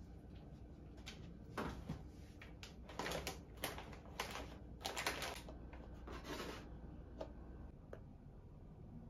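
Crinkly rustling of plastic-wrapped packets being picked through in a wicker basket, in a run of short bursts over several seconds, then fading to quiet room tone.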